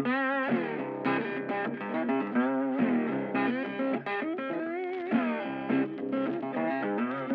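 Background music: electric guitar playing notes with wavering, bent pitches.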